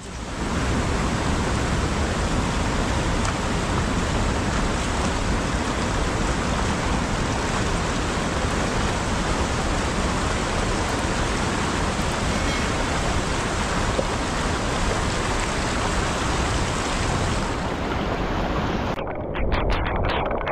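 A steady, even rushing noise that stops abruptly about a second and a half before the end, followed by a few short knocks.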